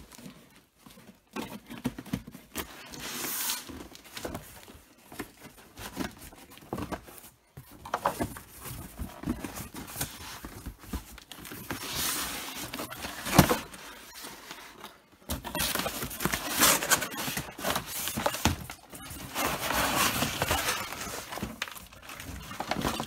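Cardboard shipping box being handled and opened by hand: cardboard scraping and rustling with scattered knocks as the box is tipped and moved, and one sharp knock about halfway through.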